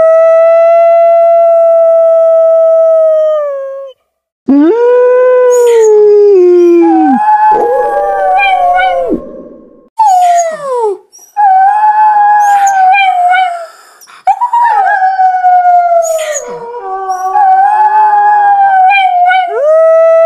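Wolves howling. One long, steady howl slides down and stops after about three and a half seconds. After a short break, several howls overlap in a pack chorus, with wavering pitches and short yips. A new long howl begins near the end.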